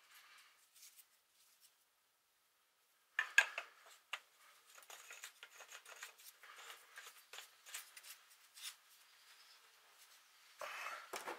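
Small handling sounds as a black hose is pushed and twisted onto a brass tube fitting by hand. A couple of sharp knocks come about three seconds in, then faint scraping and rubbing, and a louder burst of rustling near the end.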